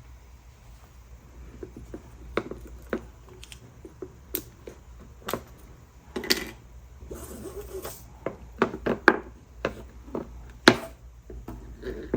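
Small tools and metal or glass pieces being handled on a worktable: scattered clicks, taps and light scrapes at uneven intervals, over a low steady hum.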